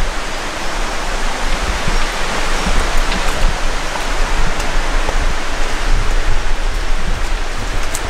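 Steady rushing of water from the Rivera del Huéznar's small waterfalls and pools, with an uneven low rumble on the microphone.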